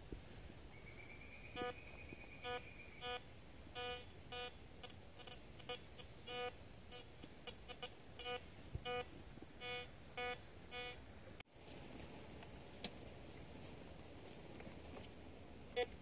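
Metal detector giving short, same-pitched beeps at uneven spacing, about one or two a second, as its coil is swept over the ground: target signals from metal in the soil. The beeps stop about two thirds of the way through.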